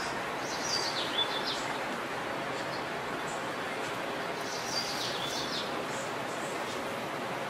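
Small birds chirping in two short phrases, about a second in and again around five seconds, over a steady wash of outdoor street noise.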